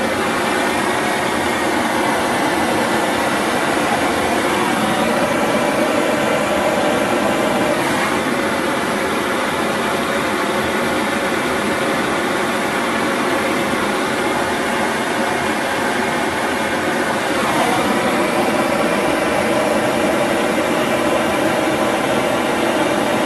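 Homemade gamma-type Stirling engine running, a continuous steady mechanical whir whose pitch shifts slightly about five seconds in and again about three quarters of the way through.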